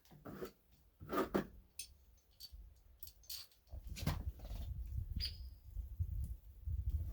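Scattered knocks and clinks of metal parts being handled and fitted. From about halfway in, a low, uneven rumble joins them.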